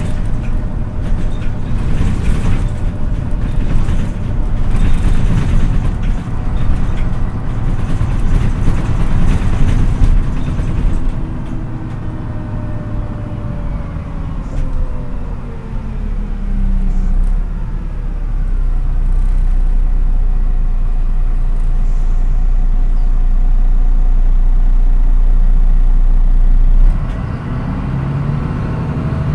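MAN NÜ 313 bus heard from on board: the diesel engine and road noise under way, then the engine note falls away as the bus slows. A steady, loud low drone follows and drops off suddenly near the end.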